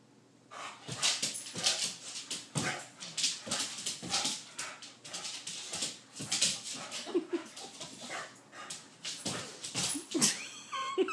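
Boxer dog playing on a hardwood floor: quick clicks and scuffs of its claws and paws on the wood as it spins and lunges, beginning about half a second in. A few short vocal sounds from the dog come in the second half.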